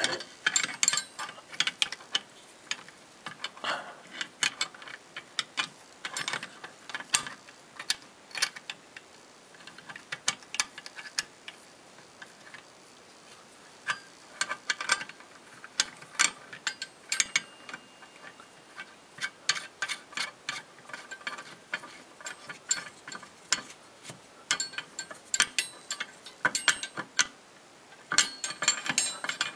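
Irregular small clicks and scrapes of plastic and metal parts handled by hand as the pop-up drain's pivot-rod cap nut is threaded onto the ball socket of the chrome tailpiece, with a quieter lull a little before the middle.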